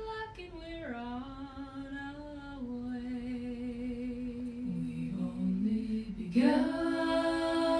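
Multitracked a cappella vocal harmony: one woman's voice, each part tripled, singing the inner two parts of the chord in close harmony on a 24-track recorder's playback. The held notes step down in pitch several times, and about six seconds in the chord swells louder and fuller.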